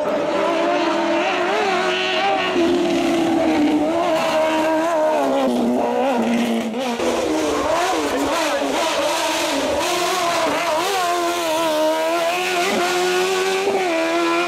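Suzuki GSX-R1000 inline-four motorcycle engine in a hillclimb car, revving high, its pitch climbing and falling again and again.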